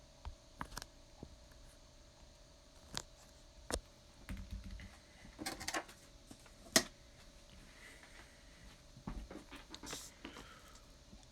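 Scattered small clicks and taps with a brief rustle, one sharper click standing out about seven seconds in, over a faint steady hum.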